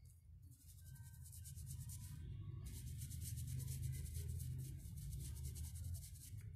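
Paintbrush scrubbing paint into the edge of a rough, porous wooden board. It makes a fast, scratchy rub of bristles on coarse wood, in two runs with a short break about two seconds in, over a low steady hum.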